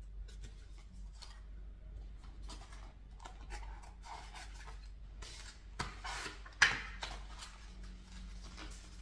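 Rustling and rubbing of paper and plastic as album booklets, packaging and photo cards are handled, with one sharper, louder crinkle about two-thirds of the way through.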